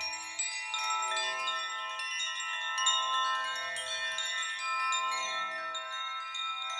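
Uneasy magic chimes sound effect: many high, bell-like chime tones ringing and overlapping in a continuous dense wash.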